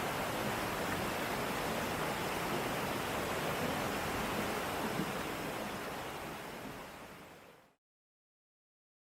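Waterfall water rushing in a steady, even roar of falling water, fading out smoothly over the last couple of seconds into silence.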